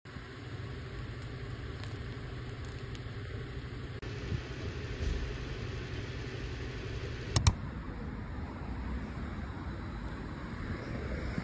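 Steady low rumble and hiss of background noise, with two sharp clicks in quick succession about seven seconds in.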